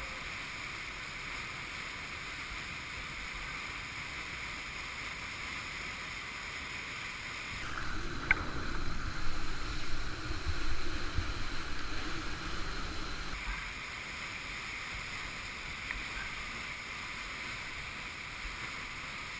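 Steady rush of whitewater from a river above a waterfall. For several seconds in the middle, louder gusty buffeting of wind on the microphone comes in over it.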